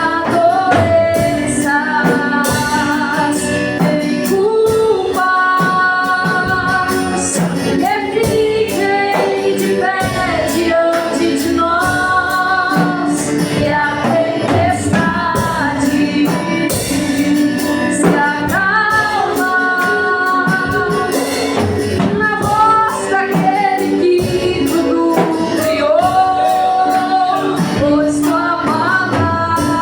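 A song in which a woman sings held, gliding melody lines with a man's voice joining, over full instrumental backing with a steady percussion beat.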